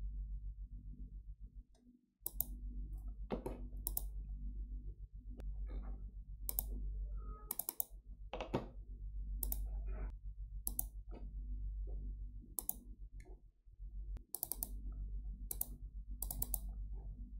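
Computer mouse button clicking: about a dozen sharp clicks at irregular intervals, some in quick pairs. Under them runs a steady low electrical hum.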